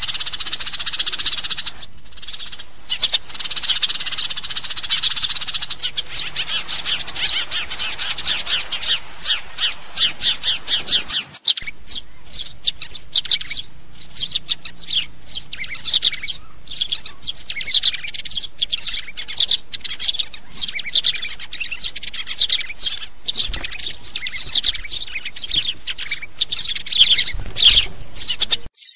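House sparrows chirping: a long run of short, high chirps, several a second, with a brief drop-out about eleven seconds in.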